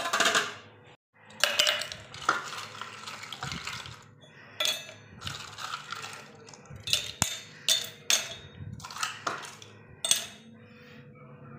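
Stainless-steel cups and ceramic plates clinking and clattering as they are handled and set down, about a dozen sharp knocks, each ringing briefly.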